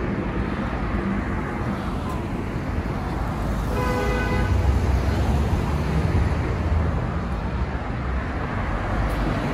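City road traffic, cars passing steadily on a multi-lane street. One vehicle rumbles past louder about halfway through. A short car horn toot sounds about four seconds in.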